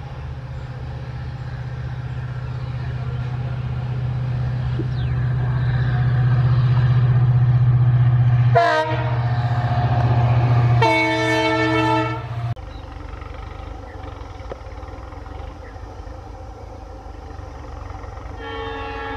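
EMD WDP-4 diesel locomotive's two-stroke engine working hard as it approaches and passes, a steady low drone growing louder, with a short horn blast about halfway through and a longer horn a second or so later. After a sudden cut, a second, more distant train sounds its horn near the end.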